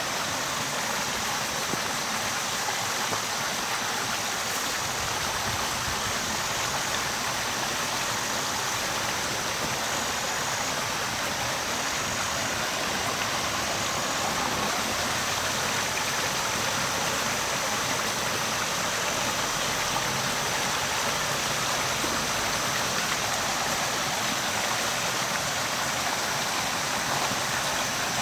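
Water flowing: a steady, continuous rush of running water, like a stream.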